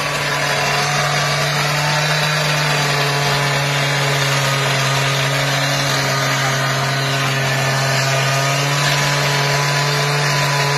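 An engine running steadily at constant speed: a low, unchanging hum with a hiss over it.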